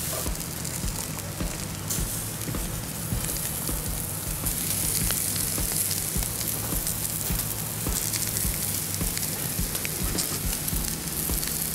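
Food sizzling steadily on a hot Blackstone flat-top griddle, with scattered low thuds.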